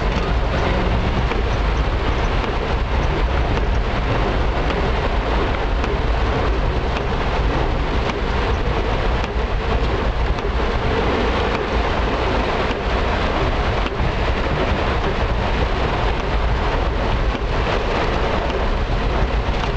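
Heavy tropical rain pelting a car's roof and windshield, heard from inside the moving car, over a steady low rumble of engine and road.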